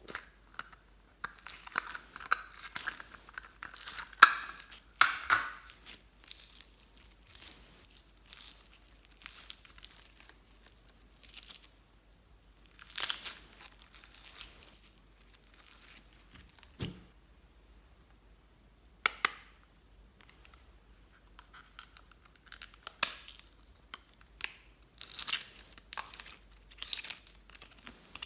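Clear slime being stretched, folded and squeezed by hand, giving irregular bursts of crackling and popping, with one low thump about two-thirds of the way in.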